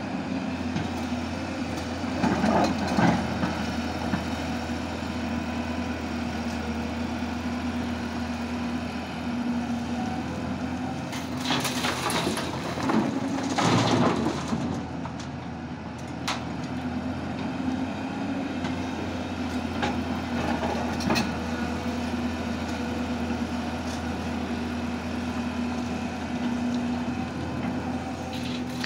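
Diesel engines of a crawler excavator and a dump truck running with a steady hum. Soil and stones rush and rattle as they are poured from the excavator bucket into the steel truck bed, loudest about twelve to fourteen seconds in. There is a shorter burst of digging or dumping noise near three seconds.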